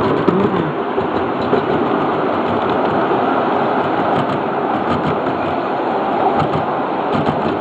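Miniature 7.5-inch gauge ride-on train running along its track: a steady rumble and clatter of the cars' wheels on the rails.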